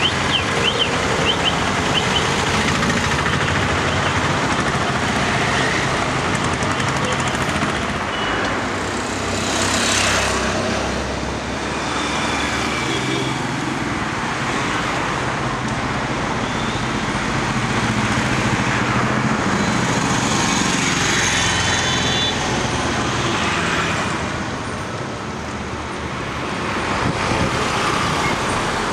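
Busy street traffic: motorbikes, auto-rickshaws and cars running past in a steady noise, with a few short high tones here and there.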